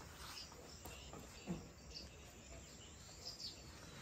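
Faint outdoor ambience of scattered small chirps from insects and birds, with a brief low sound about one and a half seconds in.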